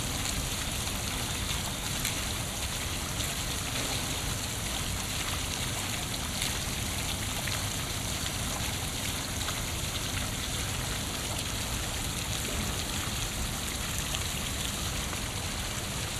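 Steady, unbroken rushing noise spread evenly from low to high pitches, with no distinct events in it.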